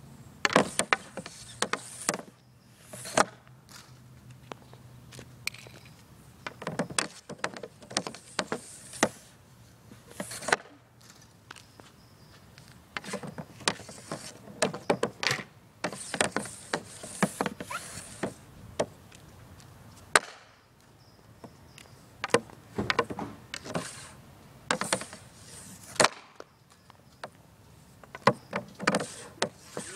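Hockey shots taken off a shooting pad with an Easton Mako stick: the blade slaps and scrapes the pad and cracks against pucks, in bunches of sharp cracks every few seconds.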